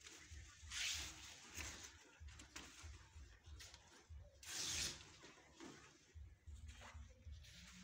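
Balloons and ribbon being handled: soft rubbing and rustling, with two louder swishes about a second in and near five seconds, over a low rumble.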